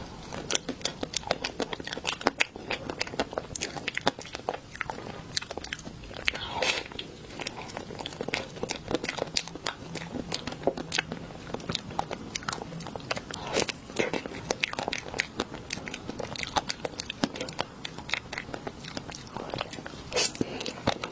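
A person eating: crunchy bites and chewing, a dense run of short, sharp crunches and clicks with a few louder bites among them.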